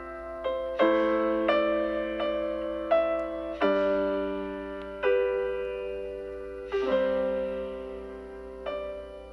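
Slow, gentle solo piano background music: chords struck about once a second, each ringing out and fading before the next.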